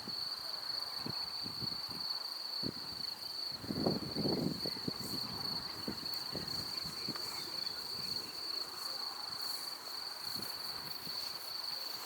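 Crickets in a grassy field, trilling steadily in one continuous high-pitched note, with a few faint ticks. A brief low sound comes in about four seconds in.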